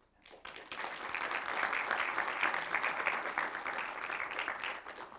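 Audience applauding. The clapping builds up in about the first second, holds steady, then fades out near the end.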